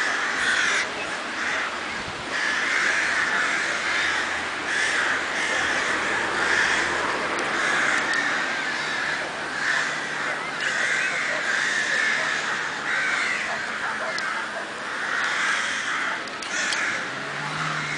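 Many crows cawing in a dense, overlapping chorus that swells and eases every second or so.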